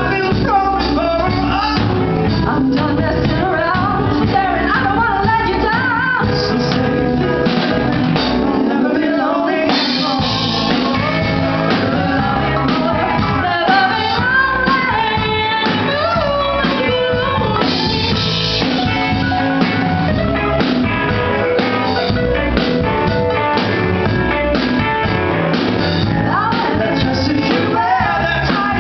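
Live rock band playing an upbeat pop-rock song: electric guitar, bass guitar and drum kit, with a woman and a man singing a duet. The bass and drums briefly thin out about nine seconds in, then come back.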